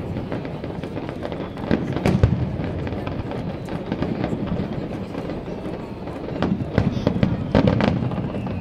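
Aerial fireworks shells bursting in quick succession: many sharp bangs over a continuous low rumble. They come thickest about two seconds in and again near the end.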